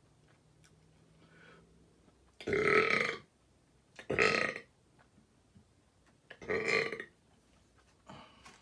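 A man belching loudly three times, each burp under a second long, then a smaller belch near the end.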